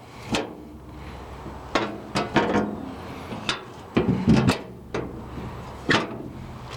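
A string of irregular knocks and clunks, about nine spread over several seconds, from the backhoe's engine side panel being handled and fitted back into place.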